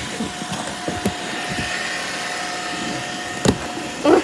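Steady machine hum with a faint constant whine, broken by a sharp click about three and a half seconds in and a short louder burst at the very end.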